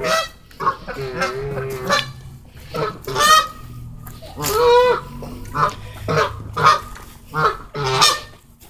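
Canada geese honking repeatedly: about ten short honks spaced irregularly, with a longer one about halfway through.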